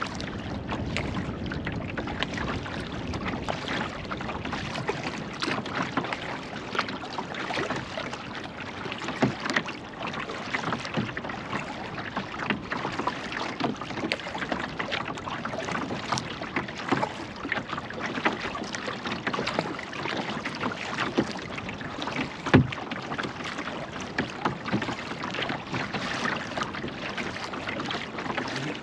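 A kayak paddle dipping and pulling through lake water, with a continuous run of small splashes. One low thump stands out about three quarters of the way through.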